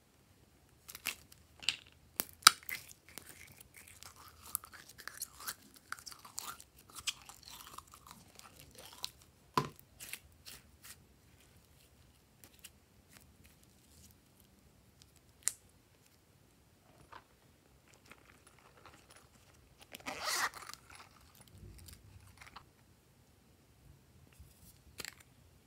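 Small plastic containers being opened, handled and tipped over a glass dish as glitter, sequins and glossy slime are added: scattered sharp clicks and taps with crackly rustling, then a louder burst of pouring about 20 seconds in.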